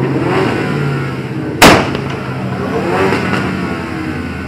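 A car engine revving up and down, with one loud sharp bang about a second and a half in.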